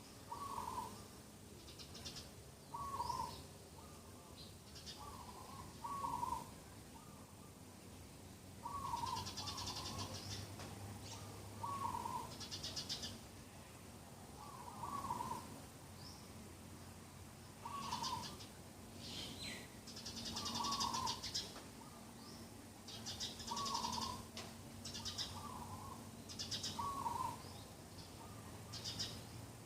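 Several birds calling in the morning: a short low call repeated every second or two, often in quick pairs, with higher chirps and rapid trilling songs from other birds over it.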